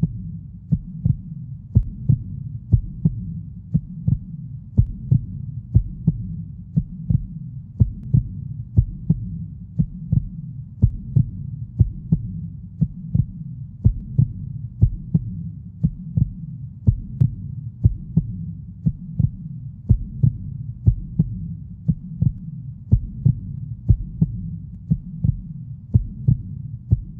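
Soundtrack of a deep, steady thumping beat, about two thumps a second over a low hum, with nothing higher than the bass.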